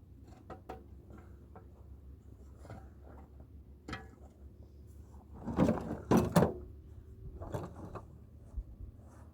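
Scattered light knocks and clicks of hard objects being handled, with a louder cluster of knocks and scraping about halfway through.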